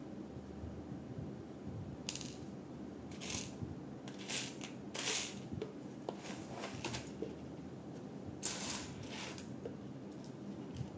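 Loose plastic LEGO bricks clattering and clicking against one another in irregular short rattles, loudest about five seconds in and again around nine seconds.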